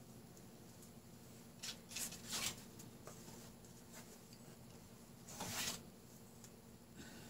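Faint rustling and scraping of a paper packet and a paint cup being handled on a table: a couple of short rustles about two seconds in, and a louder scrape about five and a half seconds in as a cup is set down upside down on a painted card. A low steady hum lies under it.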